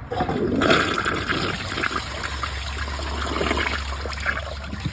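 One-piece Clovis Goods dual flush toilet flushing on its full 1.6 setting: a sudden rush of water into the bowl, loudest about a second in, then a steady draining swirl. It is flushing a Takis bag and a balled-up grocery bag, which it fails to clear.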